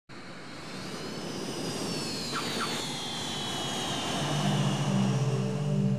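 Jet airliner engines, a steady roar that grows louder while a high whine falls slowly in pitch. A low sustained music note comes in a little past the middle.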